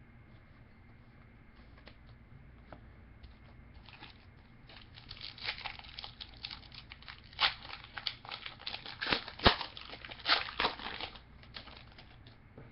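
Trading card pack wrapper being torn open and crinkled by hand: a run of sharp crackling and tearing sounds in the middle, with quieter handling before and after.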